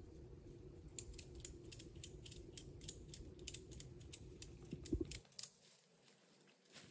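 Metal buckle of a hammock's tension strap clicking as it is worked tight around a tree trunk: a run of sharp, irregular clicks, three or four a second, that stops about five seconds in.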